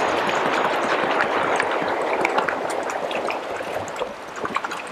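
Water pouring from a plastic jug into a post hole filled with dry concrete mix and dirt: a steady splashing stream with small crackles, tapering off near the end.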